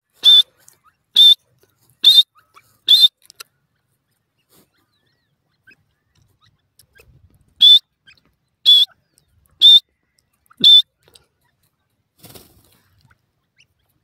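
Grey francolin calling: two runs of four loud, shrill whistled notes, about one a second, with a pause of about four seconds between the runs.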